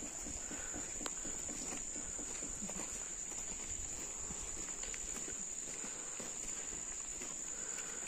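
Insects droning in one steady, high-pitched tone, with the faint crunch of footsteps on a dirt track.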